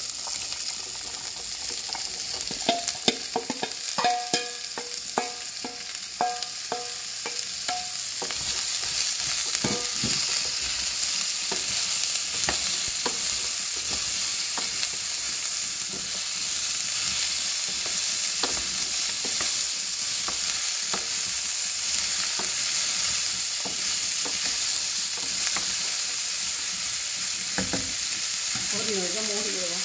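Diced beetroot frying with onions in hot oil in a stainless-steel saucepan: a steady sizzle with stirring. In the first several seconds, as the beetroot goes in and is first stirred, a run of sharp knocks rings off the pan, then lighter scrapes and taps.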